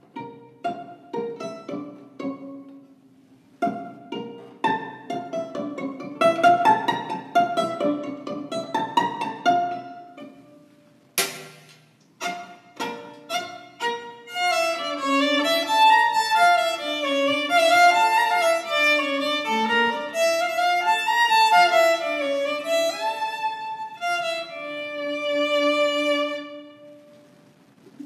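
Solo violin playing an interlude: short, detached notes for the first ten seconds or so, then a flowing melody with longer held notes from about fourteen seconds in. A single sharp knock sounds about eleven seconds in.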